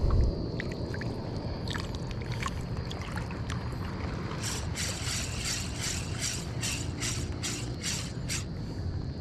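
A Ryobi Ultrapower 1000 spinning reel being cranked to retrieve line, ticking evenly about three times a second from about four seconds in, over a steady low wash of water.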